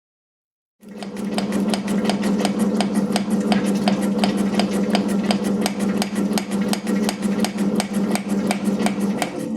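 Metal shaper running, a steady motor hum with a regular sharp click about five times a second as the ram strokes back and forth; it starts abruptly about a second in.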